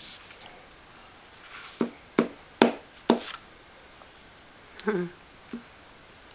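Four sharp taps of a plastic talking pen's tip on the pages of a picture book, close together, about two to three seconds in.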